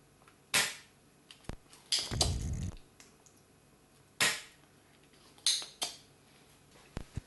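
Spring-loaded solder sucker (desoldering pump) snapping as it is fired and re-cocked to pull molten solder off a battery-pack terminal tab. Several sharp clacks, with a longer clattering bout about two seconds in.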